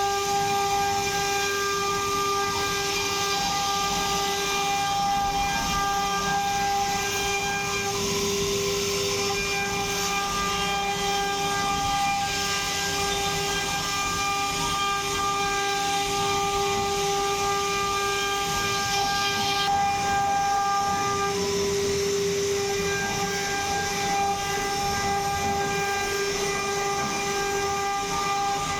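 CNC router spindle running with a steady, high-pitched whine over cutting noise; the whine weakens briefly twice.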